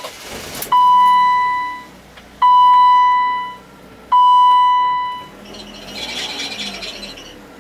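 A car's dashboard warning chime sounds three times, each a single clear tone that starts sharply and rings out over about a second, repeating about every second and a half. A softer hiss follows near the end.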